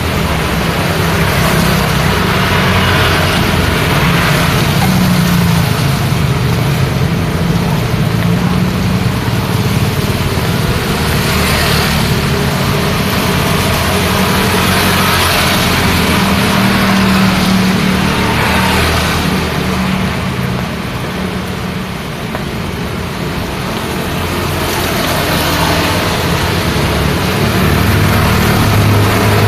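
Road traffic in the rain: engines running and vehicles passing every few seconds over a steady hiss of rain. The traffic eases briefly about two-thirds of the way through.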